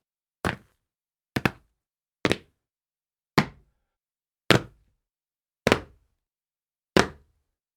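Feet landing on a tile floor from repeated jumps: seven sharp impacts about a second apart, the gaps slowly lengthening, several landing as a quick double hit.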